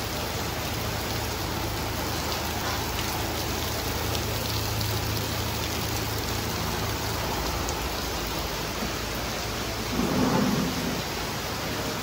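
Heavy monsoon rain pouring down in a steady, even hiss, with a faint low hum underneath.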